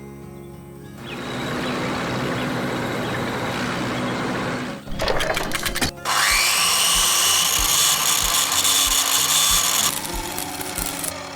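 Power-tool-like machinery sound effects over light background music: a noisy grinding run, a few sharp clicks, then a high whine that rises and holds for several seconds before cutting off near the end.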